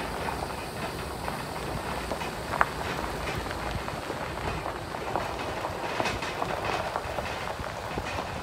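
Tyre and road noise of a pickup towing a loaded flatbed trailer over a gravel road, with the trailer and its load rattling and clattering throughout and a sharp knock about two and a half seconds in.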